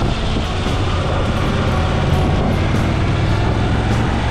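Motorcycle engine running at a steady pace on the move, a low even hum under road and wind rush.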